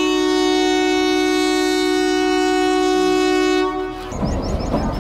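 Train horn sounding one long steady blast for about four seconds, then cutting off, leaving a loud low rumble of the standing train.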